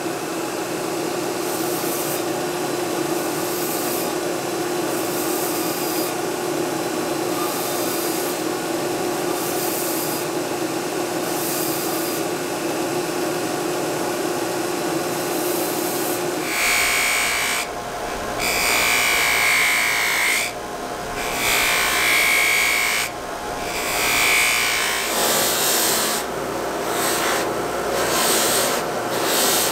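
Belt grinder running, with the knife's metal butt fitting pressed against a small-wheel belt in short passes to flush-grind it. Partway through, a bench-mounted buffing wheel takes over, running steadily while the fittings are pressed against it in several longer, louder passes, polishing them with compound.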